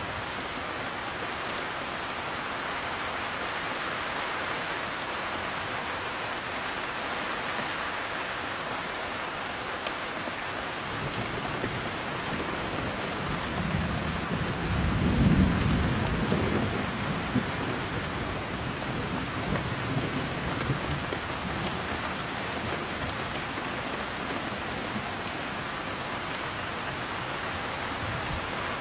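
Heavy steady rain with a roll of thunder that swells about halfway through, rumbling for several seconds and dying away.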